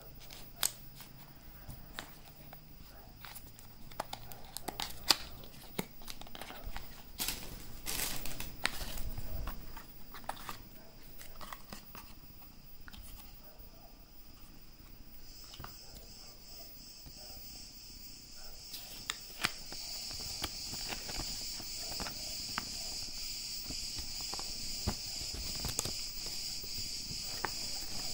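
Unboxing handling noise: scissors snipping a small cardboard box's seal, then the cardboard flaps creaking and tearing open and a folded paper leaflet rustling as it is unfolded. The sound is a run of irregular clicks and crinkles, busiest and loudest about a quarter of the way in. Behind it a steady high-pitched insect chirring grows louder in the second half.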